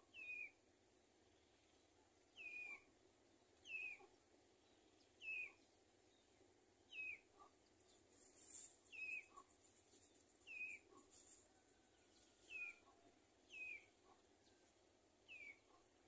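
A bird calling: a short note that falls in pitch, repeated about ten times at roughly one-and-a-half-second intervals over a faint, steady background.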